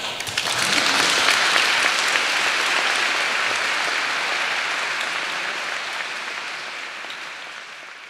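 Audience applauding, swelling over the first second or so, then slowly dying down.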